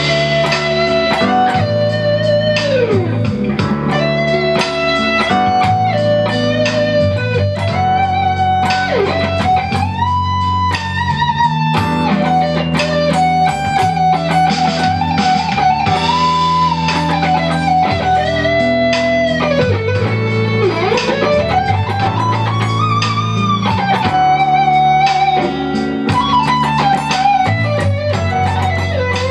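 Electric guitar lead soloing over a jazzy D major groove backing track with bass and drums. The lead plays long held notes, sliding and bending down and back up several times and climbing to high sustained notes.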